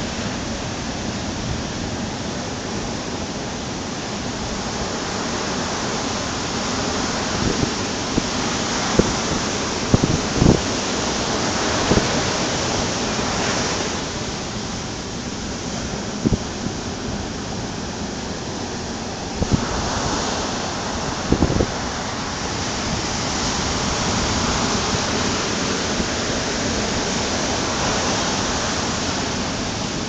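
Ocean surf breaking and washing up a sandy beach: a continuous rushing hiss that slowly swells and eases as waves come in. A few brief low thumps stand out, mostly in the middle of the stretch.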